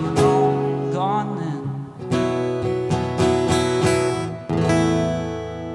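Guitar chords strummed and left to ring, a new strum about every two seconds, in a quiet stretch of a live band's song.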